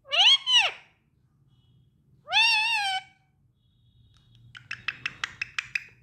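Parrot calling: two short calls that rise and fall in pitch at the start, a longer wavering call about two seconds in, then a quick run of about eight short clicking pulses near the end.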